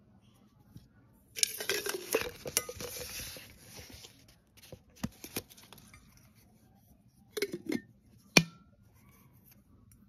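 Glass jar and its bamboo lid being handled. A rustle of about two seconds starts a second and a half in, followed by scattered clinks and knocks, the sharpest one about eight seconds in.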